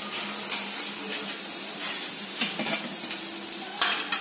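Battis (wheat-dough dumplings) deep-frying in hot oil in a steel kadhai, a steady sizzle, with a few light clicks of a metal utensil against the pan.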